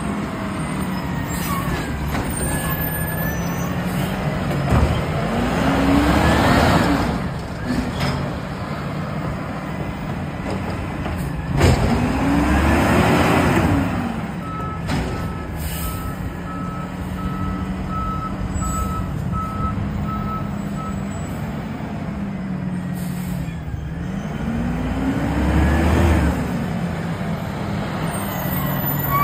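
Natural-gas automated side-loader garbage truck running, its engine revving up and falling back three times as it works the lifting arm and packer. In the middle a reversing alarm beeps steadily for several seconds, and there are a few short air hisses.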